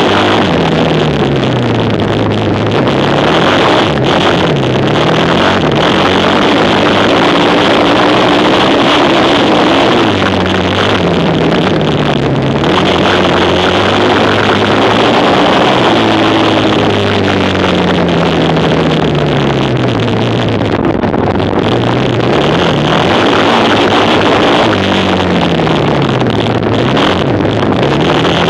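Quad bike engines racing, loud and continuous, each one revving up and dropping back again and again as the riders accelerate and lift off. At times more than one engine note sounds at once.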